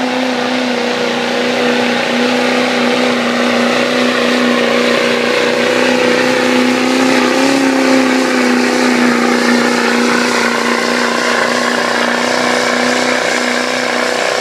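Diesel pickup truck engine at high revs under full load, pulling a weight-transfer sled. It holds a steady high drone with a slight rise in pitch about halfway through.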